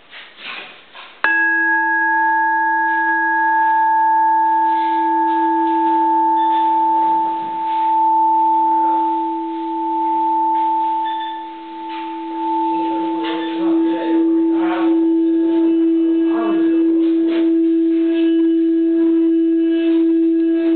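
Frosted quartz crystal singing bowl struck once about a second in, then ringing with a steady low hum and fainter higher overtones. From about two-thirds of the way through, a mallet is rubbed around the rim: a rough scraping joins the ring and the low tone swells.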